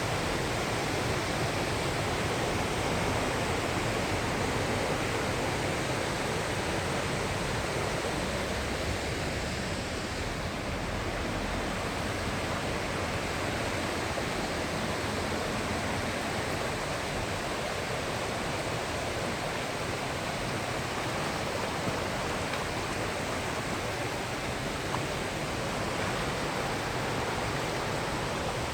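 Mountain stream rushing over rapids, a steady even roar of running water.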